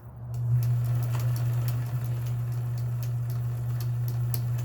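Kenmore 158.1781 sewing machine running steadily while sewing a decorative stitch: a motor hum starting at once, with a run of needle clicks on top.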